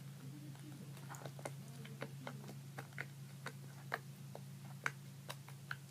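Blue slime being poked and squished by hand, giving many faint, irregular little clicks and pops, over a steady low hum.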